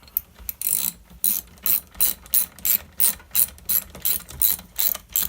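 Ratchet wrench clicking in quick back-and-forth strokes, about three a second, running the bar nuts down on a Husqvarna 385XP chainsaw.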